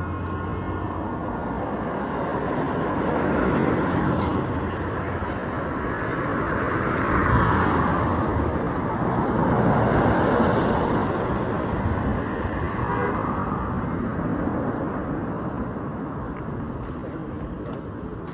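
Road traffic: cars and other vehicles passing by one after another, the noise swelling as each goes past, loudest about seven and ten seconds in.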